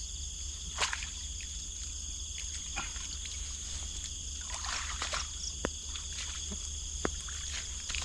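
Insects calling in a steady, high-pitched chorus, with a few short splashes and knocks of water being disturbed, the busiest about two-thirds of the way in.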